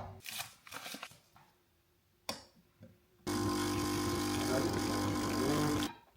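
A few light clicks and knocks, then an espresso-style barista coffee machine running steadily with a buzzing hum for about two and a half seconds before cutting off abruptly.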